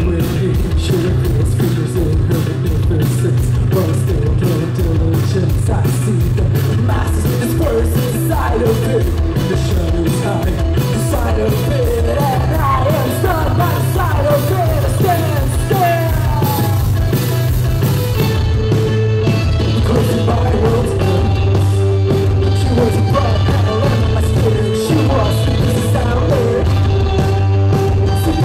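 Live post-punk band playing loud and steadily: drums, bass guitar and electric guitar with a woman singing into a microphone.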